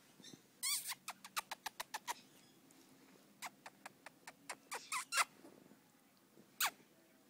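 Pomeranian puppy giving high, squeaky yips and little barks in quick bursts: a run of them about a second in, another between about three and a half and five seconds, and a single yelp falling in pitch near the end.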